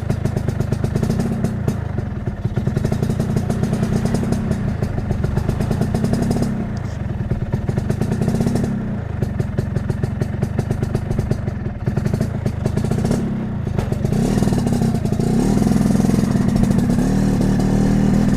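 Vespa PTS scooter's two-stroke single-cylinder engine running, blipped up and back down about every two seconds, then held at higher revs over the last few seconds.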